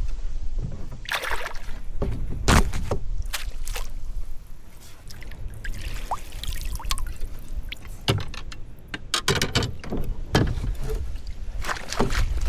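Water splashing and sloshing beside a kayak as a hooked fish is landed, with scattered knocks and clicks from handling it and gear. A low rumble of wind on the microphone runs underneath.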